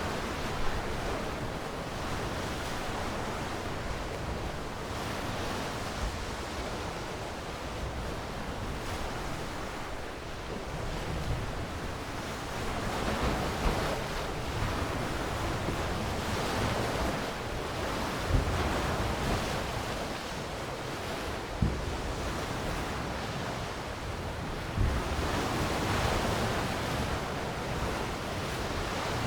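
Sea waves washing and breaking, swelling and ebbing slowly, with a few brief low thumps of wind on the microphone.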